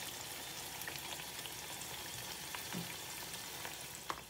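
Chicken curry sizzling and bubbling steadily in its pot, a fine crackle in the gravy, with a light click near the end.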